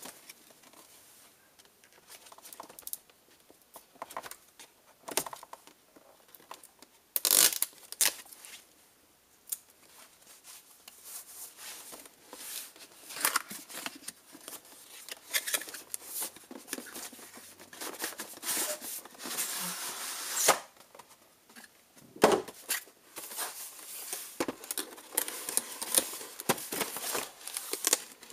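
Keyboard packaging being opened by hand: tearing, crinkling and rustling with irregular clicks and knocks, loudest about seven seconds in and again around twenty seconds in.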